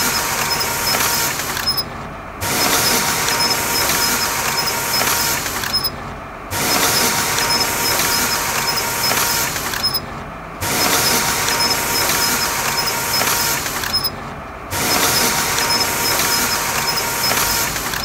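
HP PageWide Color Flow E77650 printer running a print job, with the squeaky noise that is its fault. The running sound dips briefly about every four seconds, with a thin steady squeal in parts of each cycle.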